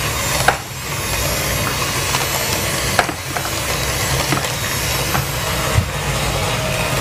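Electric hand mixer running steadily, beating batter in a glass bowl, with a couple of short knocks.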